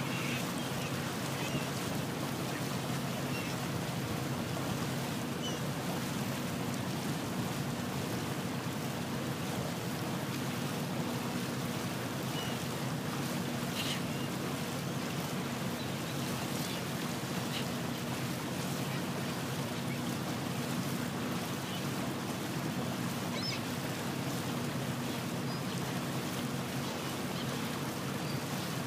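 Small motorboat under way: its engine runs at a steady hum while water and wind rush past in an even wash. Now and then a faint gull call cuts through.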